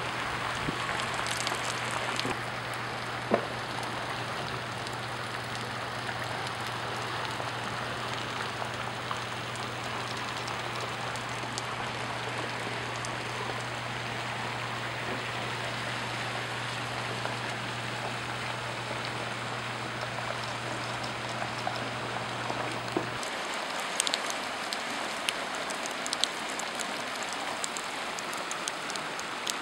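Rain and flash-flood water running shallowly across a street and sandy lot, an even hiss. A low steady hum underneath stops abruptly about three-quarters of the way through, and a few sharp ticks follow.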